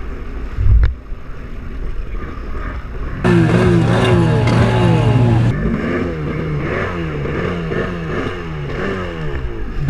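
Stand-up jet ski engine blipped over and over, its pitch rising and falling about twice a second over a steady low hum. There is a heavy thump about a second in.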